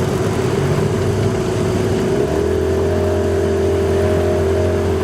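Fishing boat's motor running steadily, with wash of water. About two seconds in its note strengthens and rises slightly as the engine picks up.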